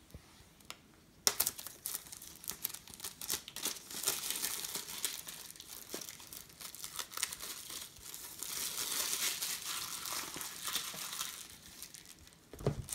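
Packaging wrap being crinkled and torn as a box is unwrapped: a dense run of rustles and crackles that starts about a second in and goes on until shortly before the end.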